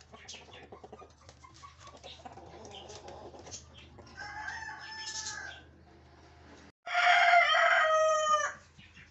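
Rooster crowing: a fainter call about four seconds in, then one loud crow of nearly two seconds that drops in pitch at its end. Light clicks and scratches sound beneath.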